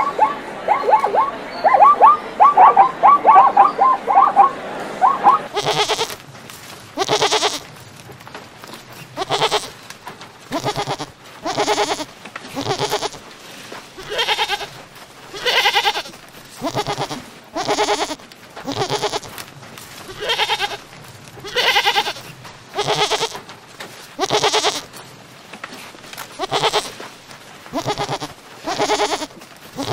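Goats bleating over and over, one call about every second, each a short bleat. Before the bleating starts, for the first five seconds or so, a rapid run of short high chirps.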